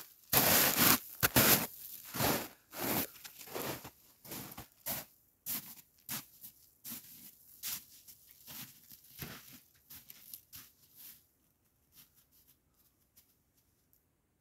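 Footsteps crunching in snow, about two a second, walking away and fading out until they stop about eleven seconds in.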